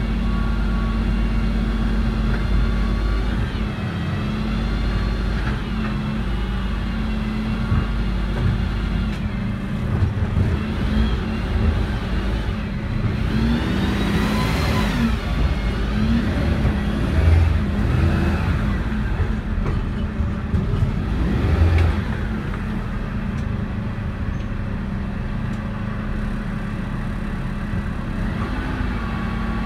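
Dennis Eagle refuse truck's diesel engine running as the truck moves slowly, heard from inside the cab: a steady low rumble and hum with higher whines that rise and fall now and then. Two louder bumps come about two-thirds of the way through.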